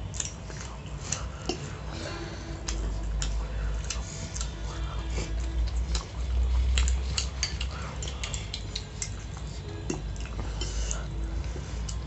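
A metal fork clinking and scraping on a plate as it scoops pasta, in irregular sharp taps, with chewing and mouth sounds close to the microphone.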